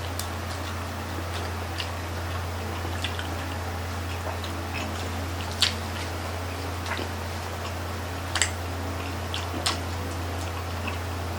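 Close-up eating sounds as grilled chicken-intestine barbecue (isaw) is chewed: scattered, irregular sharp mouth clicks and smacks over a steady low hum.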